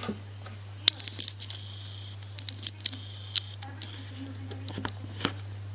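Scattered small metallic clicks and taps, with two brief scraping sounds, from handling a pin-tumbler lock cylinder and pinning-kit tools while gutting it; a steady low hum runs underneath.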